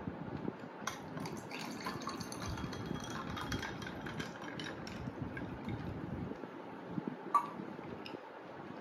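Grape juice poured from a small steel jug into a tall glass of ice, a steady splashing fill lasting several seconds. A sharp clink near the end.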